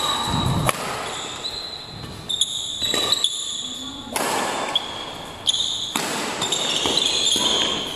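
Badminton rally: racquets striking the shuttlecock in a string of sharp smacks that echo in a large sports hall, mixed with high-pitched squeaks of court shoes on the floor.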